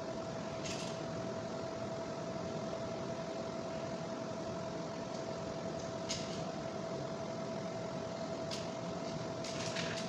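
Steady mechanical hum with one constant tone, like a fan or air conditioner running, under a few short sharp clicks from a wire stripper cutting and pulling insulation off electrical wire, once about a second in, again around six seconds and in a small cluster near the end.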